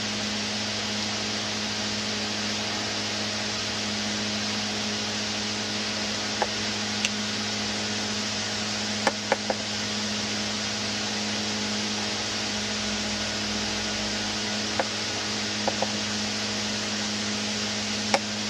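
Steady fan-like whir with a low hum, broken by a handful of short sharp clicks from a pet bird eating: single clicks, a quick run of three about halfway through, and a few more near the end.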